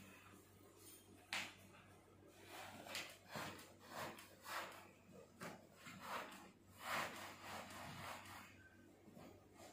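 Fabric rustling and rubbing in a series of short, irregular swishes as a bed runner is tucked in around a mattress.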